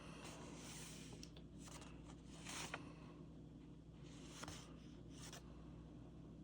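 Faint rustling and sliding of paper cards being handled, in a few short bursts over a low steady room hum.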